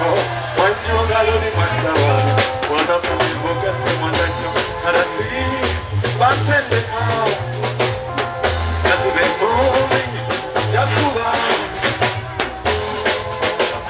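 Live music through a PA: a man singing over a beat with drum kit and a steady bass line.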